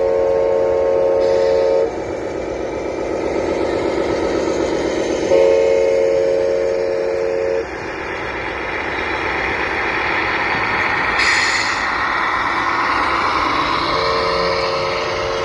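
Simulated air horn from an RC scale truck's sound unit, blasting three times for about two seconds each: once at the start, once about five seconds in, and again near the end. A steady running noise fills the gaps between blasts.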